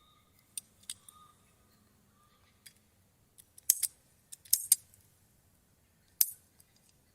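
Ratchet PEX pipe cutter working on plastic pipe: a string of sharp clicks and snaps, with a cluster about four seconds in and a single loud snap near the end.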